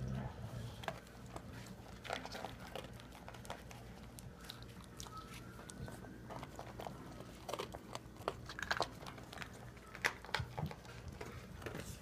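Dogs chewing and crunching dry kibble from their bowls: irregular crisp crunches and clicks.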